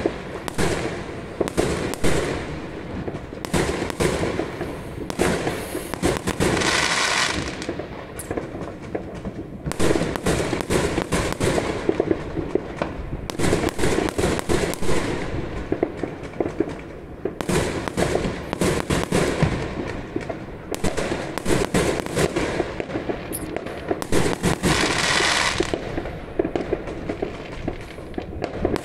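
Aerial fireworks and firecrackers going off all around in a dense, unbroken run of bangs and pops, several each second, with no pause.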